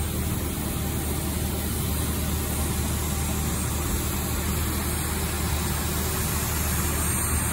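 Steady low drone and rushing noise of aircraft and ground equipment running on an airport apron, with a deep hum underneath and no change throughout.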